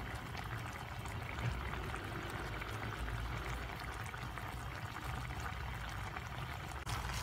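Meat chunks in a dark sauce simmering in a metal pan: a steady bubbling and crackling.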